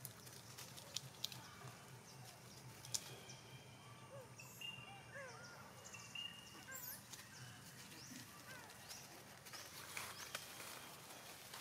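Faint outdoor ambience: a few sharp clicks and rustles in the first few seconds and again near the end, with a run of short, arched chirping calls and a thin high whistle in the middle.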